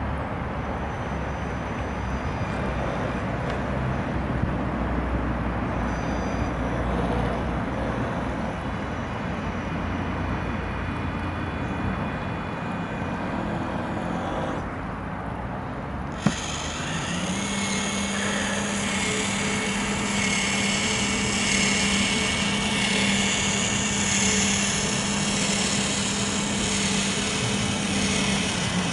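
A model rescue boat's small electric winch motor whining steadily as it reels in the tow line. It starts with a click about halfway through, over a low rumble that fills the first half.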